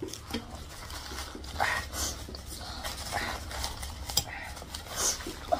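Breathy huffing and blowing out through the mouth from eating very spicy food, in a few separate puffs. A metal spoon clinks and scrapes on a ceramic plate in between.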